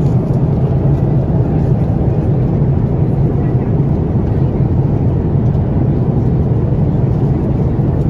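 Steady low roar of an Airbus A330-900neo airliner in cruise, heard inside the economy cabin.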